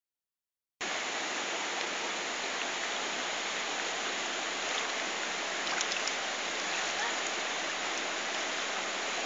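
Steady rush of river water flowing and splashing over rocks, coming in about a second in.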